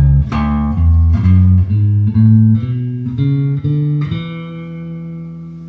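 Electric bass guitar with flatwound strings playing an A major scale upward, three notes per string, one note at a time. The run ends on a held note that rings on from about four seconds in and is stopped near the end.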